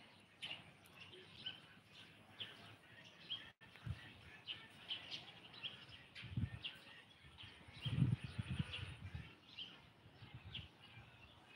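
Small birds chirping in the background, short high chirps repeated about every half second. A low rumble comes twice, about six and a half and eight seconds in, the second the loudest sound here.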